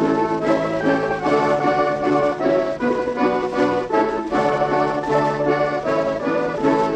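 Instrumental introduction played by a domra ensemble with accordion: a quick plucked melody over sustained accordion chords. It comes from a 1947 disc recording, with a narrow, dull top end.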